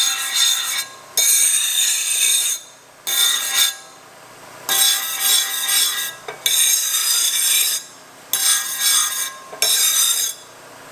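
An abrasive power tool grinding metal in a run of short passes, each about one to two seconds long, cutting in and out abruptly, with a steady high whine under the rasp.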